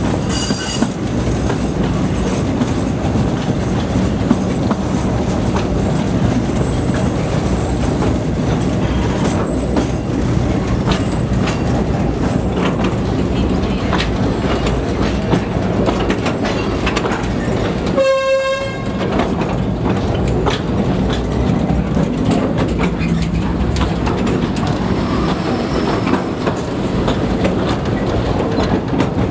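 Narrow-gauge railway carriage running along the track, a steady rumble with frequent clicks from the wheels over the rails. About two-thirds of the way through, the train's locomotive sounds one short, high-pitched horn note.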